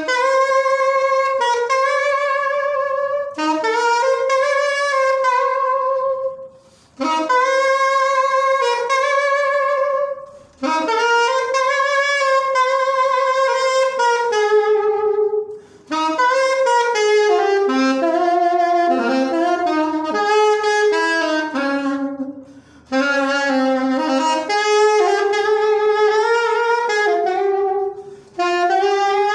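Solo saxophone playing a slow melody unaccompanied, in phrases broken by short pauses for breath, with vibrato on the held notes.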